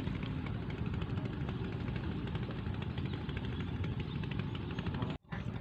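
Wind buffeting the microphone: a steady, uneven low rumble. It cuts out abruptly for a split second near the end.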